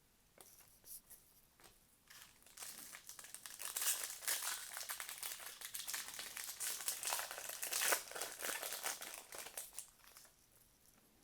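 Crinkling of a trading-card pack's foil wrapper as it is handled and torn open, starting about two seconds in, busiest in the middle and dying away near the end.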